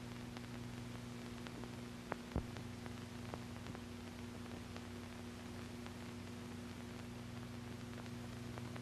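Faint steady electrical hum under a hiss, with scattered clicks and pops, two of them louder about two seconds in: the background noise of an old film soundtrack.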